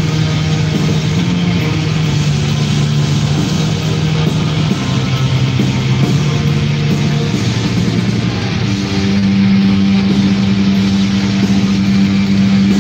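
Black metal band playing live: a dense wash of distorted electric guitars and drums over long held low notes that shift in pitch, the bass note stepping up and getting louder about nine seconds in.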